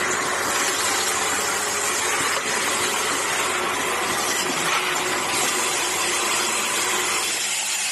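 Automatic aerosol-cap assembly machine running: a steady noisy whir with a faint low hum underneath.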